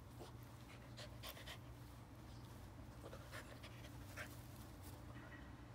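French bulldog panting in short, faint breathy puffs as it wriggles on its back on grass.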